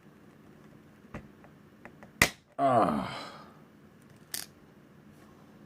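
A snap-off utility knife blade snapped off with one sharp crack about two seconds in, breaking off a dull rounded tip to expose new sharp corners. Just after it, a short wordless voice sound falling in pitch, and a lighter click near the end.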